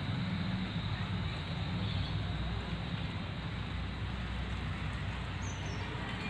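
Steady outdoor background noise with a low rumble, and a brief faint high chirp about five and a half seconds in.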